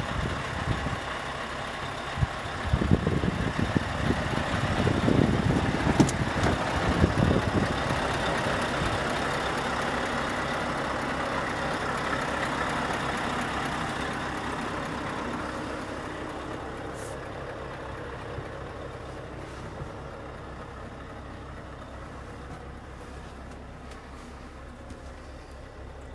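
Scania R580's V8 diesel idling steadily, becoming quieter and duller about halfway through as it is heard from inside the cab. Bumps and rustling on the microphone in the first several seconds.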